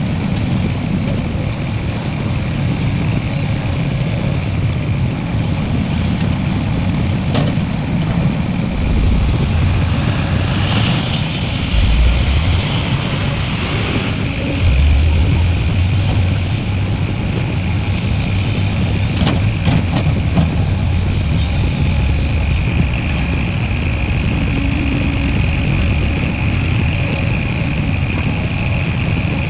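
Heavy diesel engines of an excavator and dump trucks running at a mine loading site, with a steady low rumble that swells louder twice near the middle. A few sharp knocks come about two-thirds of the way through.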